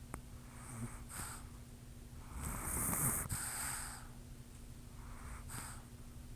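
A sleeping person snoring and snorting: a short breath about a second in, a louder rattling snore lasting about a second and a half in the middle, and another short breath near the end.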